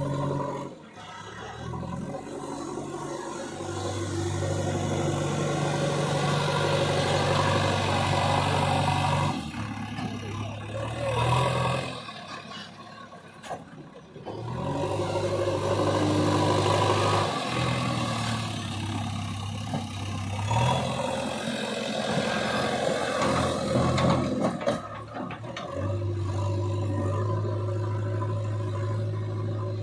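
JCB 3DX backhoe loader's diesel engine running under work, its speed rising and falling several times.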